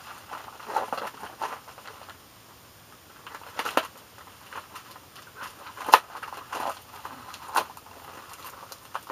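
A paper envelope being torn open and handled: crinkling and tearing, with sharp crackles every second or two, the loudest about six seconds in.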